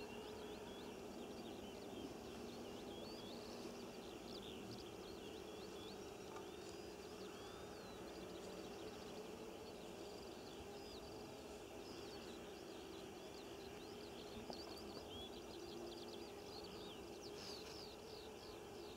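Faint birdsong: many short, quick chirps and trills, unbroken, over a steady low background noise.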